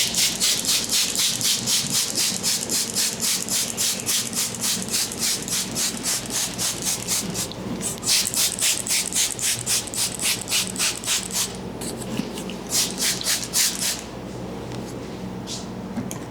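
Rapid rhythmic rubbing strokes, about four a second, as an ASMR trigger. They come in two long runs with a short break about seven seconds in, then thin out to a few scattered strokes before stopping near the end.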